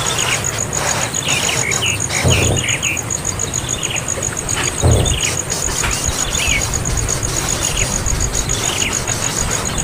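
A young bird giving short, downward-sliding chirps, repeated every second or so, over a steady, fast, high-pitched pulsing and hiss. Two dull knocks sound about two and five seconds in.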